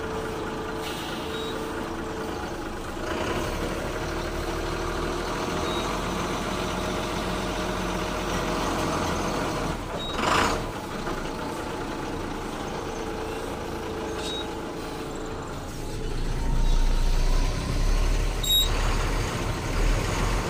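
Heavy truck diesel engines running, with a short air-brake hiss about ten seconds in and the engine rumble growing louder near the end.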